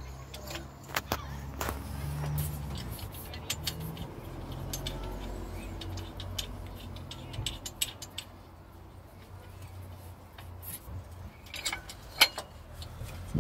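Scattered metallic clicks and clinks of parts being handled in a car's engine bay while fitting the cooling fan and shroud behind the radiator, over a low steady rumble. A few sharper knocks come near the end.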